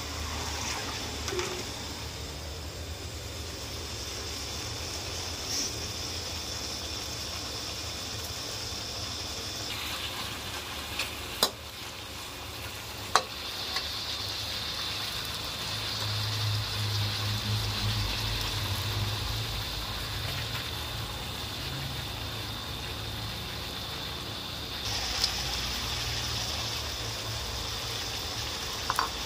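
Pork frying in hot oil in a wok, a steady sizzle, with a couple of sharp clicks of the metal spatula against the wok about halfway through.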